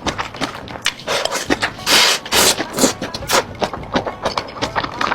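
Close-miked mukbang eating sounds: bites and chewing, with rapid irregular crackly clicks and a longer crunching burst about two seconds in.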